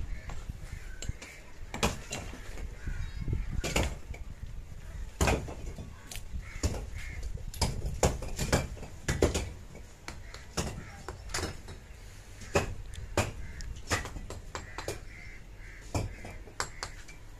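Irregular sharp knocks and clicks, about one or two a second, with birds cawing behind them.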